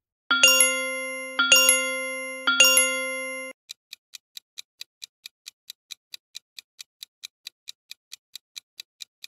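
A chiming sound effect struck three times, each strike a quick double onset whose tones ring on and fade. It is followed by a steady clock-like ticking at about four ticks a second: a countdown timer for answering the quiz question.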